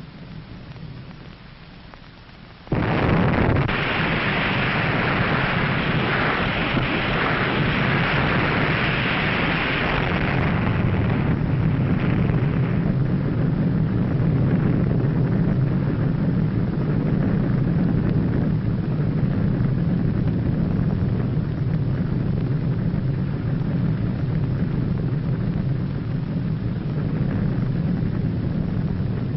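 Underwater nuclear bomb explosion sound effect: a low rumble, then a sudden blast about three seconds in. A dense rushing hiss follows and thins out after about ten seconds into a steady deep rumble.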